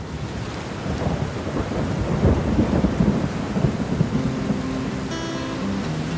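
Steady rain with a low rumble of thunder that swells about two seconds in. Held low musical notes come in under the rain near the end.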